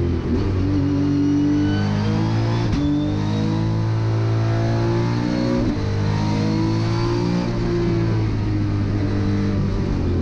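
Nissan VR38 twin-turbo 3.8-litre V6 race engine heard from inside the cockpit, running hard up a hill climb, its note rising and falling. It breaks briefly about three seconds in and again about six seconds in, with a faint high whistle rising over the first few seconds.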